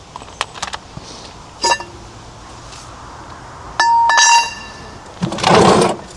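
Metal tools or parts being handled: a few small clicks and sharp ringing clinks, the loudest about four seconds in, then a louder rattling clatter near the end.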